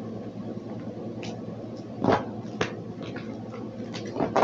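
A few sharp snaps and taps over a steady low hum, with the loudest two about two seconds in and near the end.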